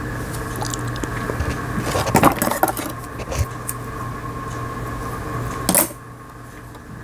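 Small metallic clicks and clinks from hands working at a sewing machine's needle and presser foot while threading it, and from handling a pair of scissors, with one sharp click near the end; a steady low hum runs underneath.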